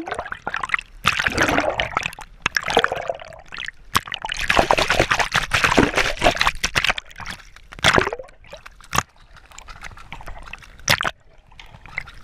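Sloshing, gurgling seawater heard from a camera held underwater, with a splash as it goes under and several sharp knocks against the housing along the way.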